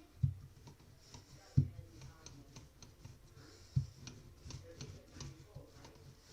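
Dough being rolled out with a rolling pin on a board: three dull thumps a second or two apart, with light clicks and taps in between.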